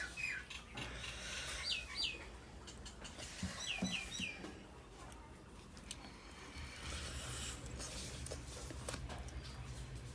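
A bird chirping in short falling calls: two about two seconds in and three in quick succession about four seconds in. Faint clicks of eating and a low steady hum lie underneath.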